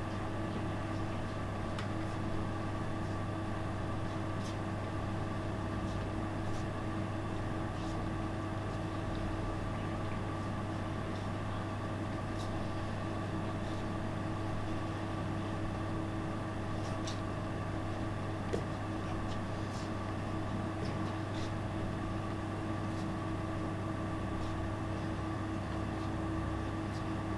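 Steady low mechanical drone: a constant hum with a few held tones above it, with faint scattered clicks and shuffles over it.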